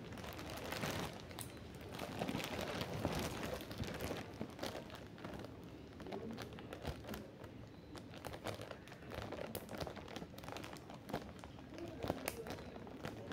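Clear plastic bag crinkling as it is handled close to the microphone, an irregular run of crackles that is busiest in the first few seconds.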